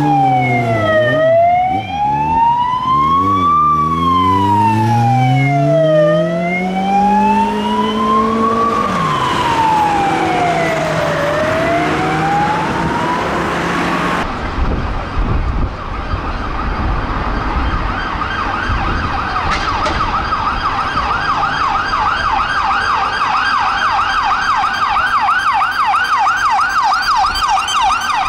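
Electronic police siren on an unmarked VW Passat in a slow wail, rising and falling about every five seconds. After a cut about 14 seconds in, an unmarked Ford Mondeo's siren sounds in a fast yelp, several sweeps a second.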